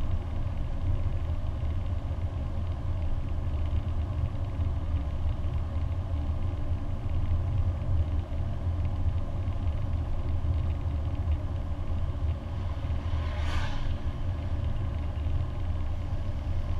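Lancia Delta HF turbo's turbocharged four-cylinder engine and road noise heard from inside the cabin while cruising at a steady speed: a steady low drone. A short hiss cuts across it about three-quarters of the way through.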